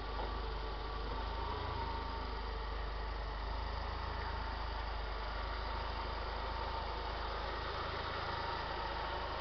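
Mercedes-Benz CLK 230 Kompressor's supercharged 2.3-litre four-cylinder engine idling steadily, heard from the open engine bay, with a thin steady whine over the hum.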